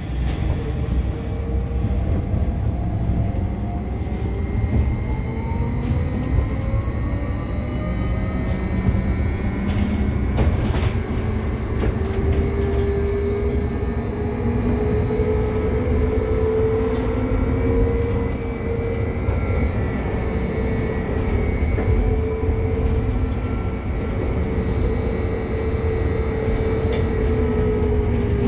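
Škoda 30Tr SOR trolleybus heard from inside the passenger cabin while driving. Its electric traction drive whines, rising in pitch as it accelerates, holding steady at speed and starting to fall near the end as it slows, over a constant low road rumble.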